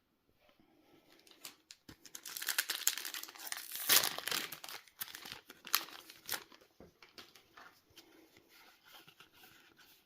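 Foil wrapper of a Yu-Gi-Oh booster pack being torn open and crinkled by hand, loudest about four seconds in, then lighter crackling as the wrapper is handled.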